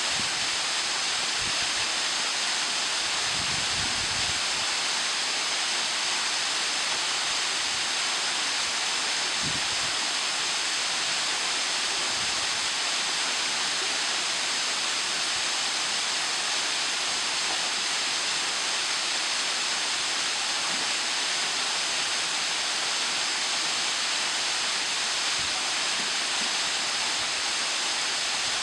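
Ohau Stream waterfall pouring into its pool: a steady, unbroken rushing hiss of falling water.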